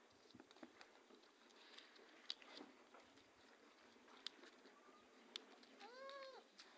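A cat meows once near the end, a short, faint call that rises and then falls in pitch, amid faint scattered ticks and clicks.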